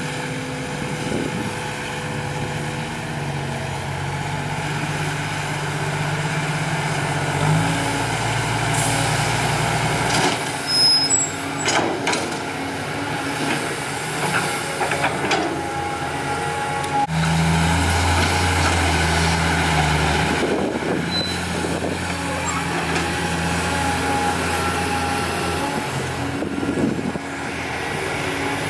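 CAT 320D excavator's diesel engine and a dump truck's diesel engine running under load as the excavator digs and swings, with the engine note stepping up and down several times. A clatter of knocks comes about ten to twelve seconds in.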